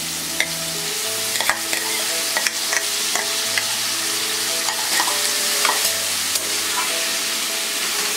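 Chopped spinach sizzling in hot oil in a nonstick kadhai, with a plastic spatula scraping and tapping against the bowl and pan as the leaves go in and are stirred. A steady hiss of frying runs under a string of short irregular taps.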